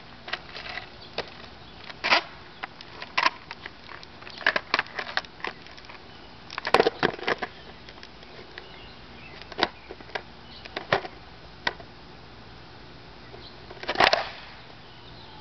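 Skateboard wheels and deck clacking and knocking on asphalt as a rider shifts on the board, trying to keep balance: scattered single clicks, with louder clusters about two seconds in, around seven seconds in and near the end.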